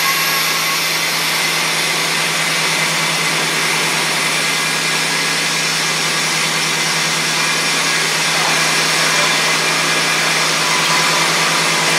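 1989 Chevrolet Silverado 1500's throttle-body-injected engine idling steadily, freshly started after sitting for six years.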